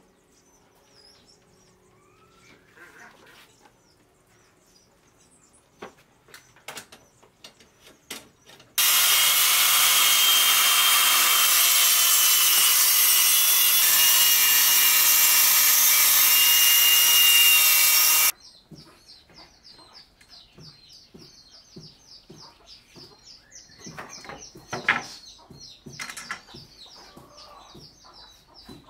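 A circular saw runs and cuts wood along a guide rail, switching on suddenly about nine seconds in and stopping after about nine and a half seconds of steady cutting. Before it there are light knocks and taps of wood and tools being handled; after it, birds call in a fast chirping run alongside more taps.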